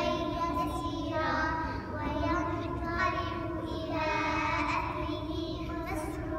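Young girls singing into a microphone, a slow melody of long held, gliding notes in phrases of about two seconds with short breaths between them.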